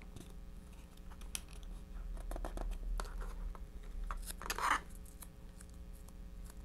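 Masking tape being handled and pressed down by hand: faint scratchy rustling and small clicks, with a louder rasp about four and a half seconds in.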